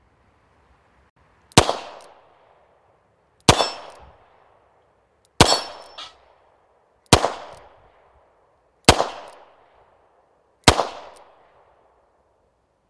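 Six shots from a Rock Island Armory AL9.0 9mm revolver, fired one at a time about every two seconds, each trailing off briefly.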